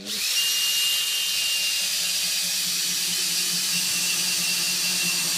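Cordless drill running steadily under load, driving a screw down through a reclaimed wood floorboard into the subfloor, with a steady motor whine; it stops sharply near the end.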